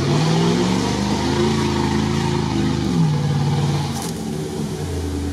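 Engine of a Dodge Ram-cabbed GAZ-66 off-road truck (a "Shishiga-Dodge") heard from inside the cab, pulling away with its pitch rising over the first second. It holds, drops about three seconds in as the revs fall or it shifts, then climbs again near the end.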